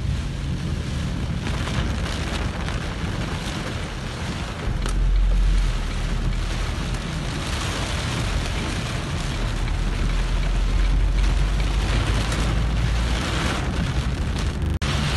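Torrential rain pouring onto a vehicle's windshield and body, heard from inside, over the steady low rumble of the moving vehicle. The sound drops out for an instant near the end.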